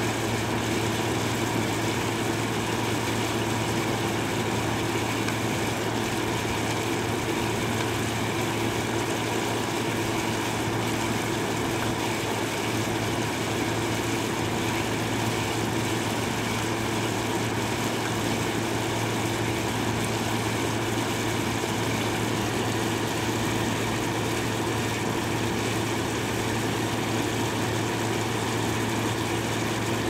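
Window air conditioner running, a steady low mechanical hum that holds level throughout.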